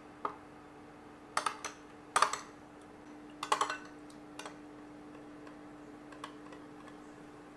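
Metal spoon stirring in a ribbed glass bowl, clinking against its sides in scattered taps, with the loudest clusters about one and a half, two and three and a half seconds in and only a few light taps later. A faint steady hum runs underneath.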